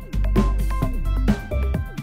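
Electronic backing music with a heavy bass and a steady drum beat of about two hits a second.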